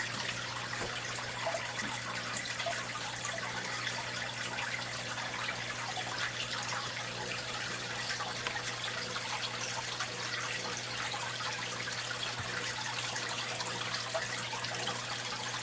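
Home aquarium water trickling and bubbling steadily, with small drips and a steady low hum underneath.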